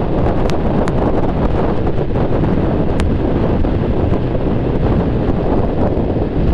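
Wind buffeting the microphone of a scooter rider at road speed: a loud, steady rush of wind noise with a few faint ticks.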